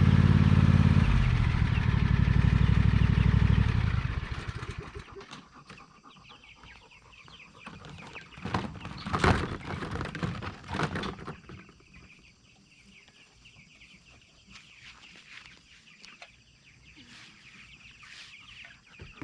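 Riding lawnmower engine running, dropping in pitch about a second in, then dying away about four seconds in. After it, meat chickens clucking in short bursts, loudest a few seconds later, then faint.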